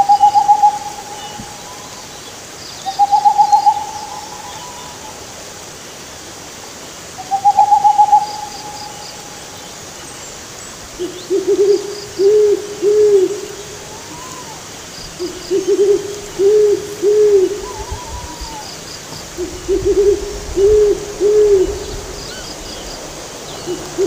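Owls hooting over the steady rush of a shallow rocky river. In the first eight seconds there are three short trilled calls. From about eleven seconds a lower hoot comes in groups of four, three times over. Faint quick chirps repeat high above.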